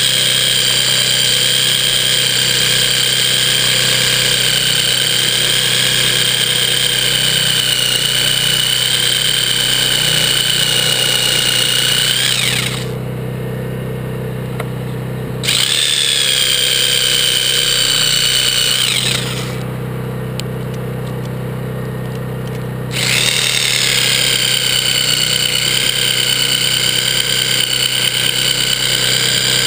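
Chicago Electric electric body saw running with a steady high whine as it works at a broken-off windmill bolt. About twelve seconds in it winds down and stops for about three seconds, then starts again; it winds down and stops a second time for about four seconds before starting again. A low steady hum continues underneath.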